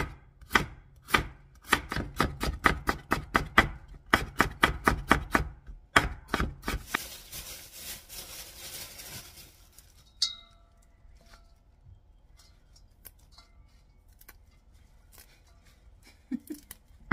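Chef's knife chopping a carrot on a cutting board, quick even strokes at up to about four a second, stopping about six seconds in. A few seconds of scraping follow, then a single ringing metal clink near ten seconds and soft handling of leafy greens.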